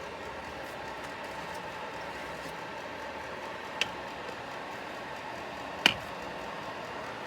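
Ceramic space heater's fan running with a steady noise-like hum, broken by two sharp clicks, one near the middle and a louder one a couple of seconds later.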